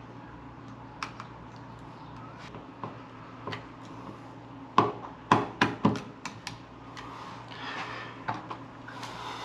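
Sharp plastic clicks and knocks from a thermostat base and trim plate being handled and fitted against a wall, with a quick cluster of louder taps about five seconds in, over a steady low hum.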